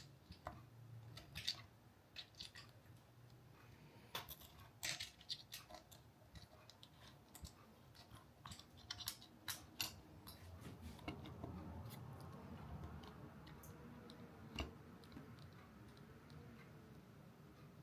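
Faint, irregular clicks and taps of small hard parts being handled, scattered through near silence.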